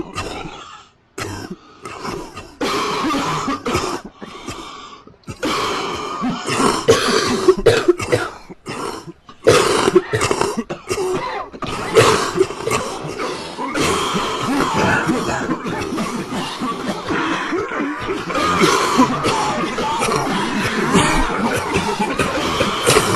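Many people coughing, the coughs overlapping: separate coughs at first, then a near-continuous mass of coughing from about five seconds in.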